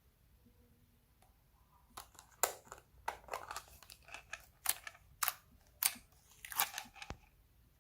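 Slime being squeezed and worked by hand, giving an uneven run of sharp crackling and popping clicks that starts about two seconds in and stops shortly before the end.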